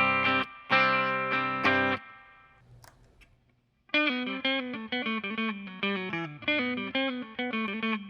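Electric guitar with Seymour Duncan Antiquity humbuckers, played through a Mesa/Boogie Express 5:50 tube amp on its clean setting. A few strummed chords ring out and fade to silence about three seconds in, then a quick single-note lick starts about a second later.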